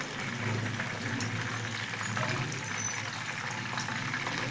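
Hot oil steadily sizzling and crackling around keema-stuffed green bell peppers shallow-frying in a pan.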